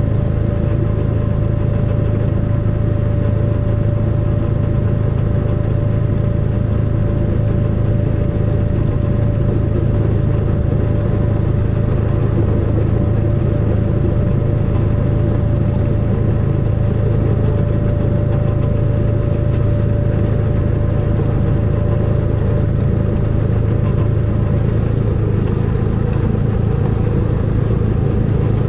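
Snowplow vehicle's engine running steadily under a constant low hum, with a steady higher whine alongside it that fades out near the end.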